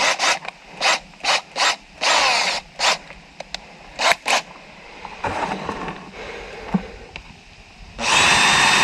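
Power drill boring through a tapping saddle into a PVC water pipe, pulsed on and off in about ten short bursts, then run steadily for a second and a half near the end.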